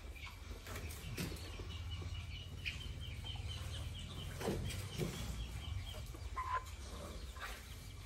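Young chickens calling, with a run of quick high chirps lasting about four seconds and a few scattered clucks, over a low rumble from the pen.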